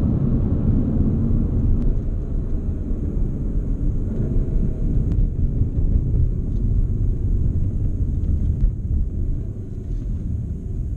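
A 2016 Volkswagen Golf R's turbocharged four-cylinder engine and tyres heard from inside the cabin as the car drives along, a steady low rumble that eases off near the end as the car slows.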